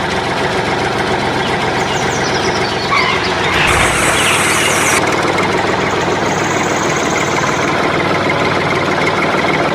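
A heavy engine running steadily, with a louder, noisier stretch lasting about a second and a half, starting about three and a half seconds in.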